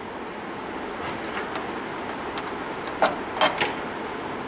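Test-lead plugs and clips being handled and pushed onto a trainer board's sockets: three short sharp clicks close together about three seconds in, over a steady background hiss.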